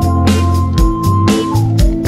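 Background music: an instrumental stretch of a pop song with a steady drum beat of about two hits a second over bass and sustained notes.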